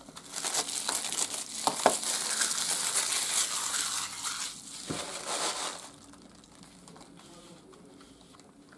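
Plastic packaging crinkling and crumpling as it is handled, with a couple of sharp clicks, dying away about six seconds in.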